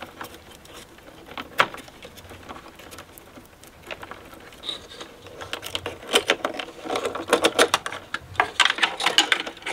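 Clicks and rattles of wiring and plastic connectors being handled and unclipped from an amplifier board: a single click about a second and a half in, then a busy run of small clicks from about six seconds on.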